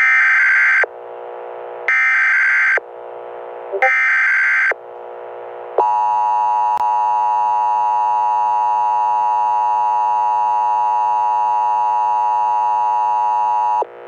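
Emergency Alert System tones for a Civil Danger Warning. Three short screeching bursts of SAME header data, each under a second with a pause between, are followed by the steady two-tone EAS attention signal for about eight seconds. A single click sounds partway through the tone.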